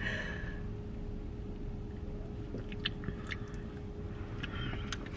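Soft mouth sounds of tasting soda from a plastic bottle: a short sip at the start, then a few small clicks and chewing noises, over a low steady hum.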